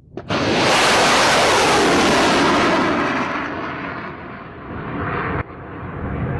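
Raad surface-to-air missile launching: a sudden blast about a third of a second in, then the rocket motor's roar, loudest for about three seconds and fading as the missile climbs away. The roar breaks off abruptly about five seconds in and a similar roar carries on.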